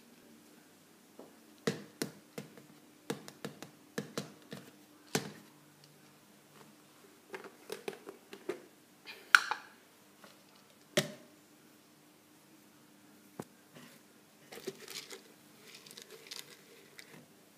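Hands handling sunflower seeds and their plastic container on a countertop: irregular clicks, taps and light crackles, the loudest a short squeaky crack about nine seconds in. A faint steady hum runs underneath.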